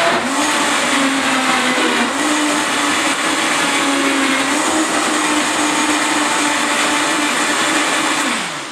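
Countertop blender running at full speed, blending a container full of greens into juice. It starts abruptly and holds a steady, slightly wavering motor tone. Near the end it is switched off and the motor winds down with a falling pitch.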